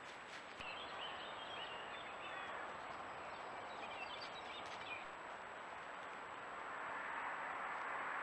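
Faint small-bird chirps and twittering in two short bouts in the first half, over the steady hiss of a trail camera's microphone, with a thin high steady tone underneath.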